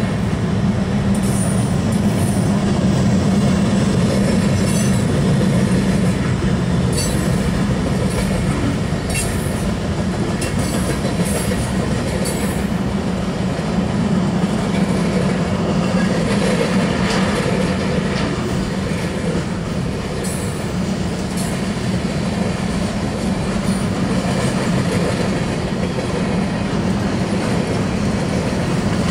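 Cars of a mixed manifest freight train rolling past: a steady rumble of steel wheels on rail with scattered clicks and squeaks.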